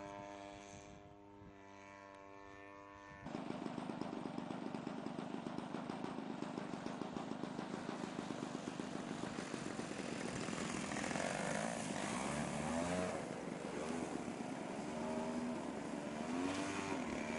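50cc two-stroke gas engine and propeller of a model Yak 54 aerobatic plane in flight: a steady, fainter drone at first, abruptly much louder about three seconds in, then from about eleven seconds in the pitch swings up and down again and again as the throttle is worked through hovering manoeuvres.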